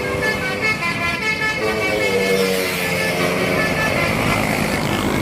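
Telolet multi-tone bus horn playing a quick melody of short stepped notes, holding one note about two seconds in. In the second half the horn gives way to a bus passing close by, its engine and tyres swelling in a rush of noise.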